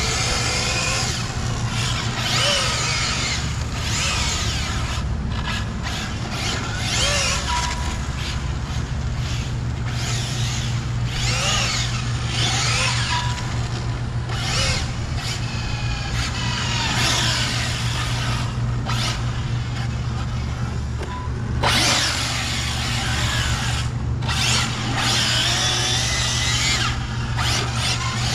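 ARRMA Felony 6S radio-controlled car's brushless motor whining in repeated bursts as it is driven hard on concrete, the pitch rising and falling with each burst of throttle, over a steady low hum.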